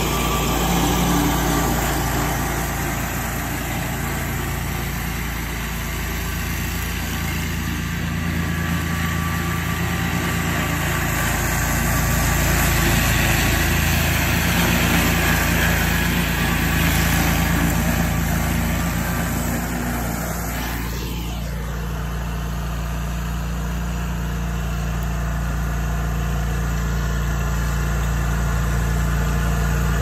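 Engine of an RC Mowers remote-control tracked slope mower running steadily as it cuts tall grass. There is a brief falling whoosh about two-thirds of the way through.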